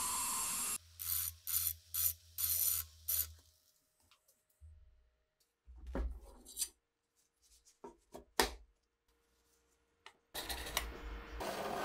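Drill bit boring into a steel cleaver blade, cutting off abruptly about a second in, followed by a few short bursts. Then scattered clicks and metal knocks as the blade is handled, and from about ten seconds in a steady scratching as a caliper jaw scribes a line on the steel.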